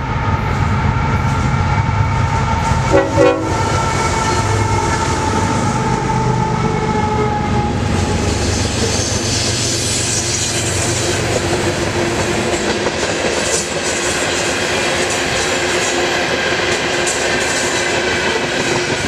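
Kansas City Southern rock train passing close by. The horn sounds a salute in the first seconds along with the locomotive's deep engine rumble, then a long string of loaded hopper cars rolls past with a steady clatter of wheels on the rails.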